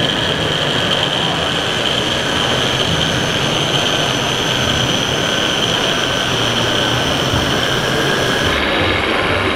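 Steady mechanical running noise of a radio-controlled PistenBully snow-groomer model driving and pushing through artificial snow, mixed with the steady din of a busy exhibition hall. The sound changes abruptly near the end.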